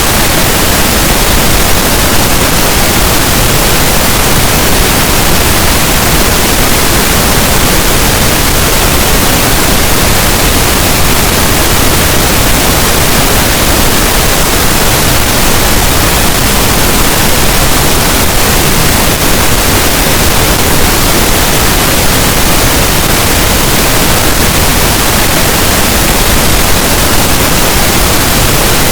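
Steady, loud pink noise: an even, unbroken hiss with no changes.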